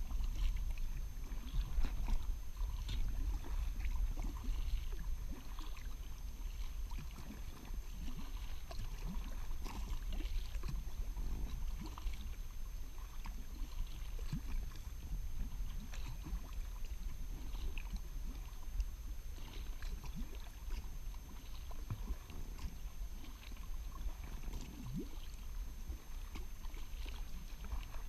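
Kayak moving on a river: water lapping and splashing against the hull in small, irregular bursts over a steady low rumble.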